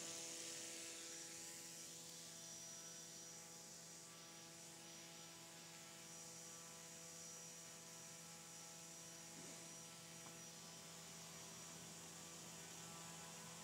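Near silence with a faint, steady hum made of several unchanging tones.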